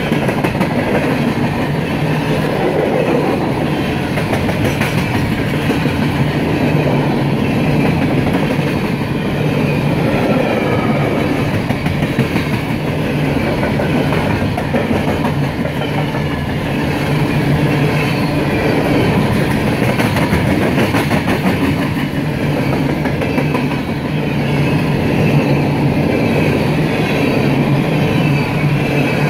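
Empty coal hopper cars of a freight train rolling past, their steel wheels running steadily on the rail.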